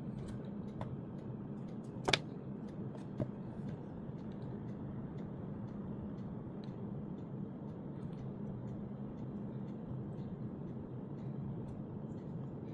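Small clicks and taps of packaging and earphones being handled, with one sharper click about two seconds in, over a steady low hum.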